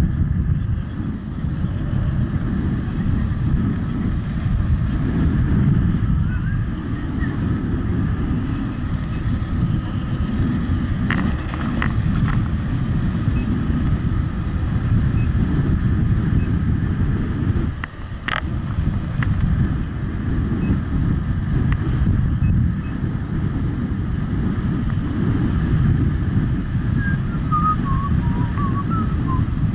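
Wind rushing and buffeting over the microphone of a rider moving along on an electric unicycle, a steady low rumble. There is a sharp click about two thirds of the way through and a few faint high chirps near the end.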